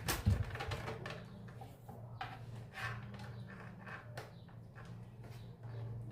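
Scattered clicks and knocks of hands and tools handling parts of a speaker cabinet being taken apart, with a sharp click at the start, over a steady low hum.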